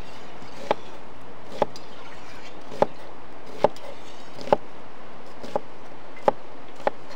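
Knife chopping on a wooden cutting board: about eight separate sharp cuts, roughly one a second, over a steady background hiss.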